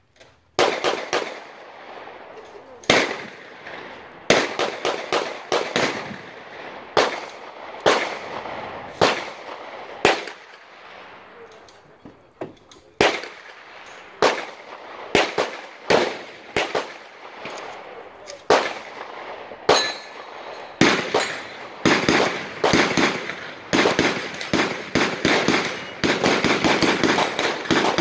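Gunfire from several shooters at a range. Sharp single shots come irregularly, about one a second, each with a short echo and sometimes overlapping. Near the end they turn into rapid strings of shots.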